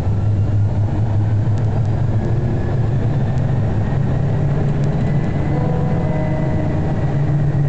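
Interior of a tram running along its rails: a steady rumble of wheels and running gear under a low electric hum that rises slightly in pitch partway through as the tram picks up speed.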